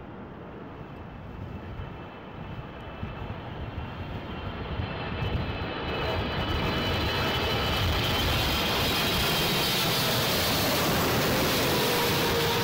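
Jet engines of a twin-engine widebody airliner, a Boeing 777, on final approach. The sound swells steadily over the first half as the aircraft nears, then holds loud, with a high whine over a low rumble.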